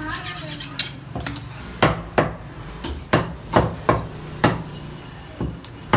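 Butcher's cleaver chopping mutton on a wooden chopping block: a run of sharp, irregular chops, about ten of them, roughly one every half second.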